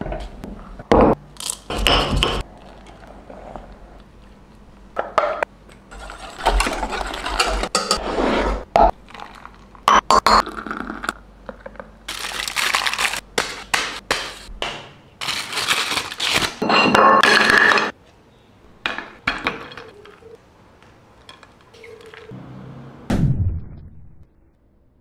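A run of separate kitchen sounds: utensils clinking and knocking against steel pots and cups, with a few stretches of a second or two of scraping and pouring between them.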